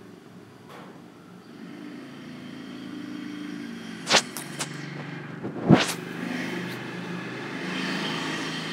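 Lemongrass and garlic sizzling in hot oil in a frying pan as they are stir-fried, over a low steady hum. Wooden chopsticks knock sharply against the pan a few times, loudest twice about a second and a half apart.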